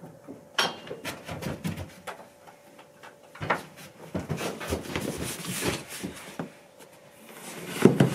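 Knocks, clatter and rustling of a cardboard shipping box being carried in and handled, ending in a loud thump as the box is set down on a table near the end.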